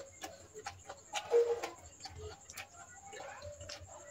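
Close-miked eating of rice and chicken curry: irregular wet clicks and smacks of chewing, with a louder, noisier patch about a second and a half in.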